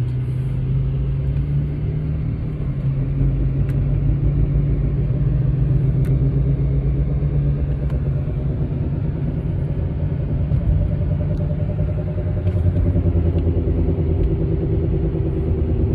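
Inside the cabin of a 2008 Mercedes-Benz CL550 at speed: a steady, loud low rumble and drone from the rear passenger-side wheel, a rotational "whoop, whoop" noise in step with the wheel that rises with road speed. New rotors and pads have not cured it, and the owner takes it for a failing rear wheel bearing.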